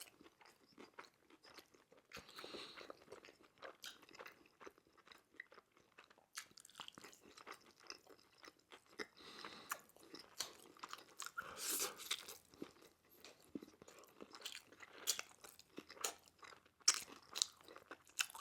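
Close-miked chewing with many irregular crisp crunches, the sound of biting and chewing the crunchy coating of Korean fried chicken.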